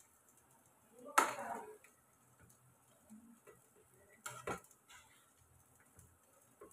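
A plastic spoon knocking and scraping against a metal cooking pot while cooked rice is turned over. There is one sharp knock about a second in and two quicker knocks a little past the middle, with quiet stirring between.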